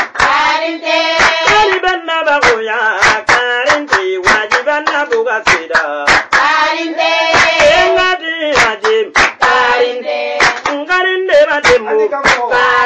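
A voice singing with held, gliding notes, over sharp rhythmic hand claps at about three a second.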